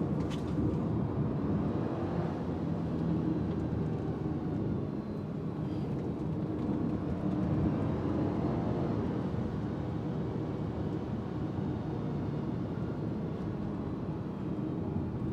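2018 Subaru Forester XT's turbocharged 2.0-litre flat-four running on the road, heard with steady road noise, its pitch rising and falling gently as the speed changes.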